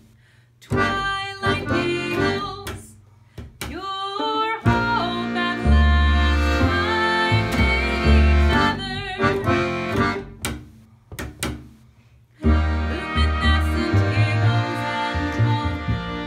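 A small acoustic folk group plays a song on accordion, violin and upright double bass, with a woman singing. The music starts sparse and fills out with the bass about five seconds in, drops away briefly around eleven seconds, and comes back in full.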